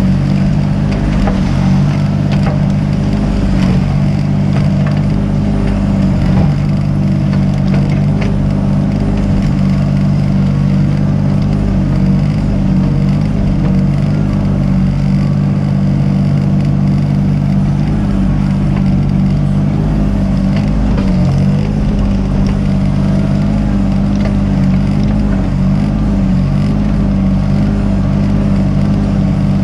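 Mini excavator's diesel engine running steadily at working throttle, with a few faint knocks over it.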